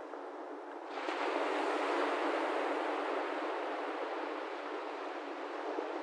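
Sea waves washing on the shore: a wave surges in about a second in, is loudest around two seconds, then slowly eases off as it drains away.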